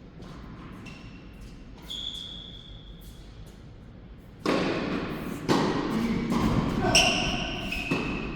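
Tennis balls being struck and bouncing on an indoor court: a string of separate thuds with short high squeaks. The thuds get louder and come closer together from about halfway.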